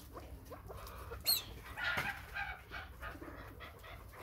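A flock of young chukar partridges calling with soft clucks and short chirps, with one sharper, higher call about a second in.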